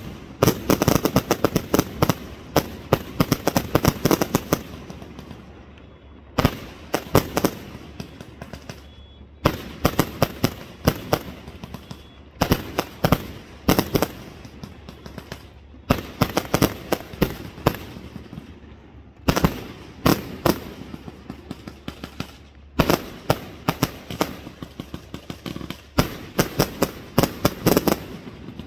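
Fireworks going off in rapid volleys of sharp bangs and crackles, each volley a few seconds long with brief lulls between them.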